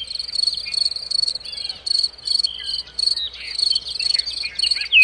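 Crickets chirping in quick, high-pitched repeated pulses, with a few short bird chirps over them.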